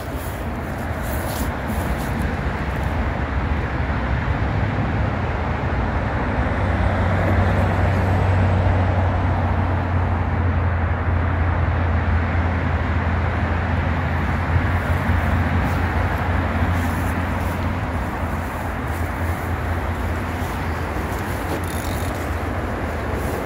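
Steady noise of busy main-road traffic, swelling a little with a deeper rumble for several seconds in the middle.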